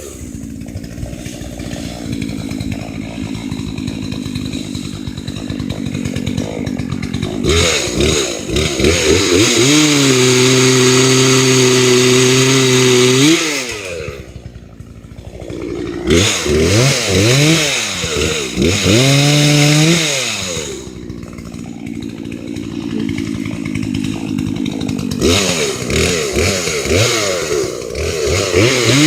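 Chainsaw running at a lower steady speed and revved up to high speed three times, each high-speed stretch lasting a few seconds before the pitch falls back.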